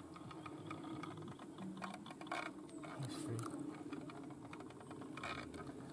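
Fishing reel clicking in a fast, even run while a hooked fish pulls on the line.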